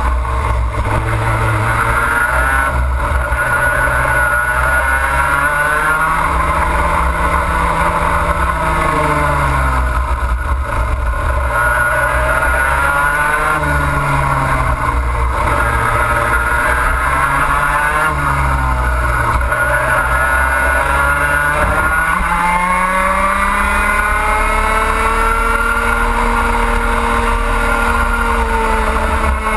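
Racing kart's two-stroke engine at full racing speed, revving up along the straights and dropping sharply each time the driver lifts for a corner, over and over, then climbing steadily on a longer straight near the end.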